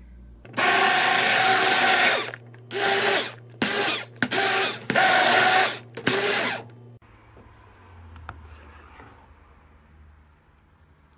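Immersion blender run in about six short bursts in a pot of thin liquid, puréeing banana into it, its motor whine mixed with churning liquid; it stops about seven seconds in.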